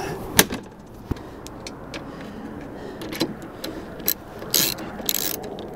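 Clicks and knocks as the Starlink flat dish is set onto its metal mount, then short runs of a socket ratchet wrench tightening the mounting bolts.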